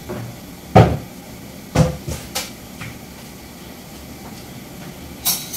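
A few sharp knocks and clatters of kitchen items being handled and set down: a loud one about a second in, a quick cluster around two seconds in, and another near the end.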